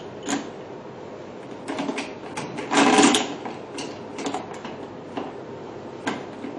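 Small clicks and knocks of hard parts being handled as the PDT light arm of a beauty machine is fixed in place and its fitting tightened, with one louder rub lasting under half a second about three seconds in.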